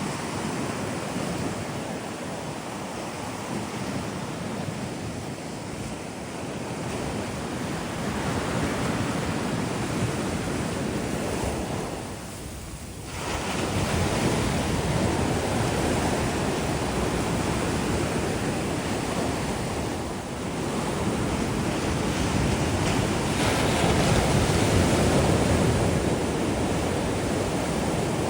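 Sea waves breaking and washing up the beach in a continuous surge that swells and ebbs, with a brief lull about halfway through before the next wave comes in louder.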